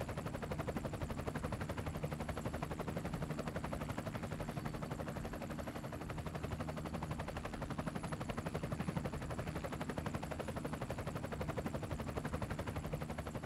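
Helicopter rotor sound effect for a toy helicopter in flight: a fast, even, unbroken chopping.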